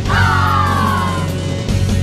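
Closing bars of an upbeat, fast pop-rock exercise song: the band holds its final chord while a long voice glides downward in pitch over it.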